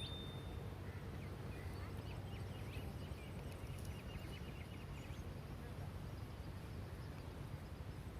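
Steady low outdoor rumble with faint bird calls: a short high whistle right at the start, then a run of small chirps for a few seconds.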